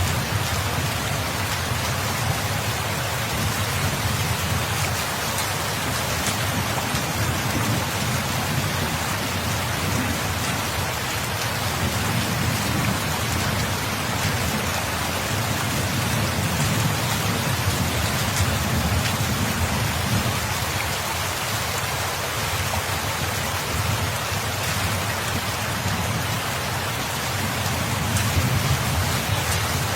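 Steady, dense rainfall hissing evenly, with a low rumble underneath that swells and fades several times.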